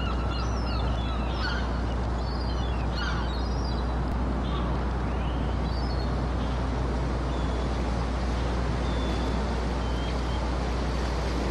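Steady hiss over a low hum, with scattered high chirps during the first few seconds and a few faint short tones later.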